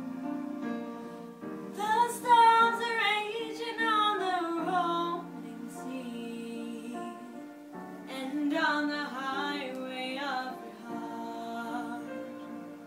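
A girl singing a slow song solo over an instrumental backing, two phrases with wavering held notes, the first about two seconds in and the second about eight seconds in.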